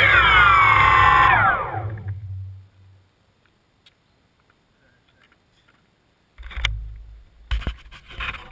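DJI Phantom quadcopter's electric motors and propellers spinning down after landing: a whine that falls in pitch and fades out over about two seconds. After a few seconds of quiet, knocks and rustling from about six seconds in as the drone is handled and lifted.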